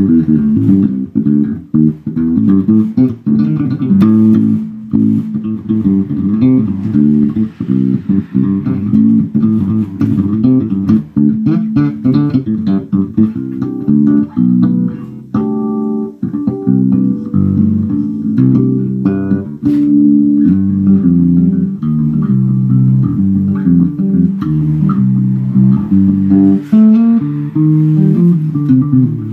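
Warwick electric bass guitar played funk-style: a busy line of short plucked notes in the low register, changing pitch quickly.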